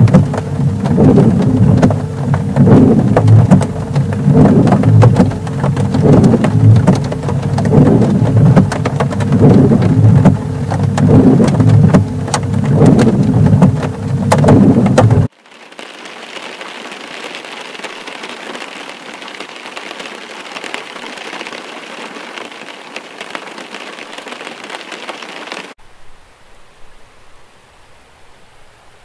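Heavy rain pelting down hard over a deep low rumble, with a regular pulsing in it. About halfway through it cuts suddenly to a much softer, steady rain-like hiss, and near the end it drops again to a faint hiss.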